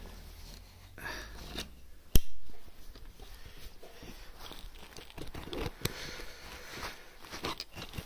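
Clothing rustling and crinkling with handling noise, many small clicks, and one sharp knock about two seconds in.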